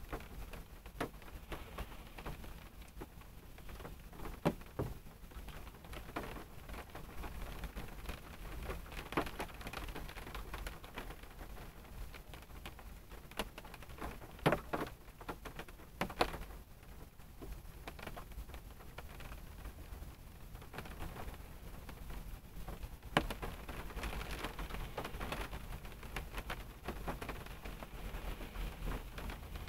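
Rain falling on a car's roof and windshield, heard from inside the cabin: a steady patter with scattered louder drops tapping now and then.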